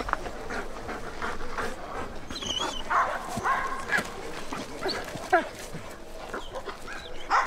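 Service dogs whining and yipping in short, high calls, some of them gliding in pitch. One sharp, louder sound comes a little after five seconds.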